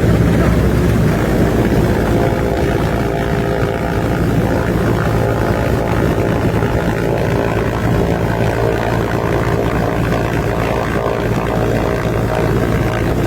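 Loud, steady engine drone with a constant low hum.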